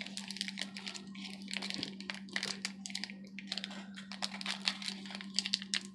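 Trading cards and their foil-wrapped packs being handled: a quick, irregular run of light clicks and crinkles over a steady low hum.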